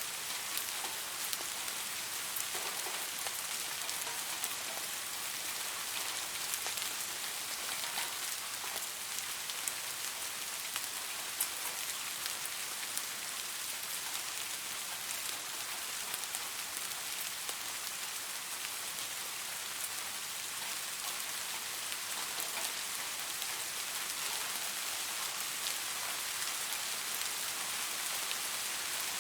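Steady rainfall, a continuous hiss of drops with many fine individual drop ticks pattering on a surface.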